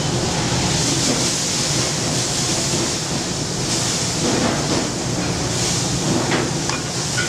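Steady rushing background noise of a commercial kitchen, with a few faint clinks of a spoon against a steel skillet near the end.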